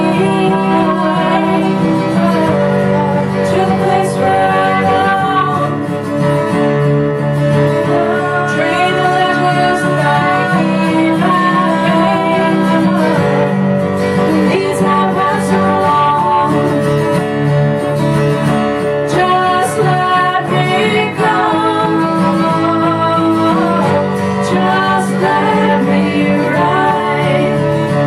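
A bowed cello and an acoustic guitar playing together while a woman sings the melody: a live acoustic duo song.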